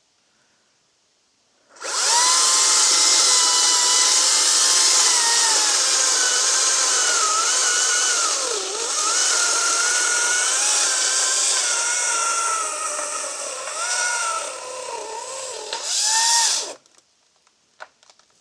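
Makita 18V cordless chainsaw cutting into a fallen pine, starting about two seconds in and cutting off a little before the end. Its motor whine dips and recovers in pitch several times as the chain bogs under load in the wood.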